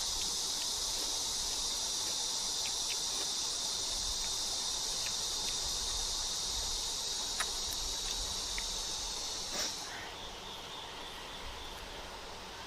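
Steady, high chirring of insects, such as crickets or cicadas, with a few faint clicks; it stops about ten seconds in.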